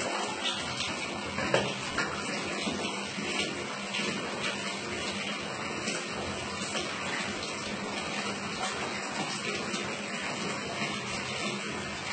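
Tap water running steadily, with a sharper splash about a second and a half in.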